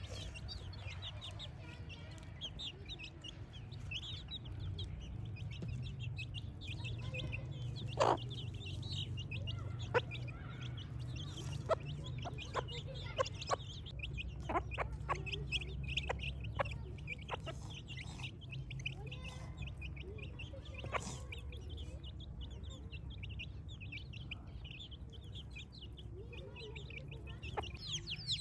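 Chicks peeping continuously in short high chirps, with chickens clucking. Sharp taps sound a dozen or so times near the middle, over a steady low hum.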